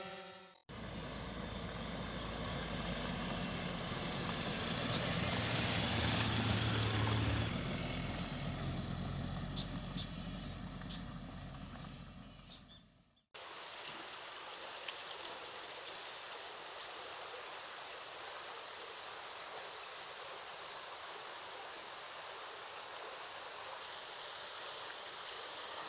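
Steady rushing of falling water from a waterfall. For the first half it is a louder, deeper rush with some rumble that fades away. About halfway there is a sudden cut to a quieter, even rush without the low rumble.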